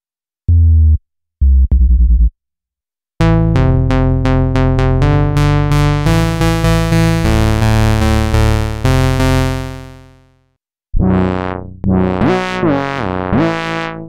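SynthMaster 3 software synthesizer playing bass presets one after another, with short silences between them: two brief low stabs, then a bright bass line of quick repeated notes that fades out after about seven seconds, then a few swelling notes that slide in pitch near the end.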